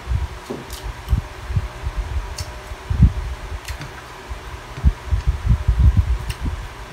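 Electric fan running steadily, under a string of low thumps and a few faint clicks from eating by hand at the table.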